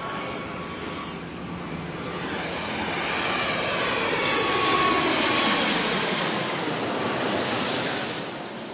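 Jet airliner flying low overhead: the engine noise swells to its loudest about halfway through, then falls in pitch and fades as the plane passes.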